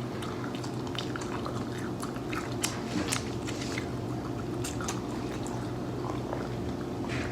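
Close-up eating: a person chewing food, with many small wet mouth clicks and smacks over a low steady hum.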